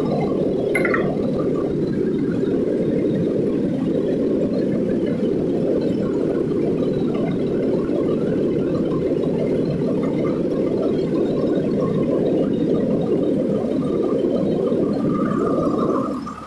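Fire engine running, a loud steady low rumble heard close at the front of the truck; it drops away abruptly near the end.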